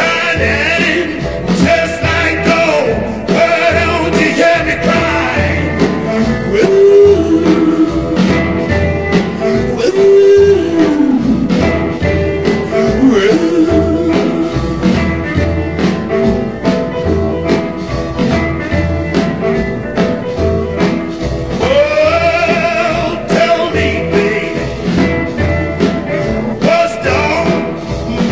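A song with a sung vocal over a steady beat and bass line.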